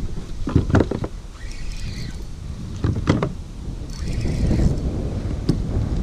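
Wind rumbling on the camera microphone on a kayak, with two clusters of sharp knocks, about half a second in and about three seconds in.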